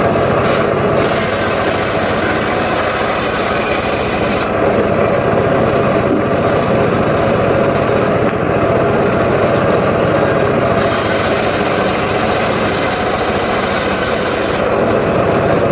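Small engine of a wood-cutting power saw running steadily and loudly.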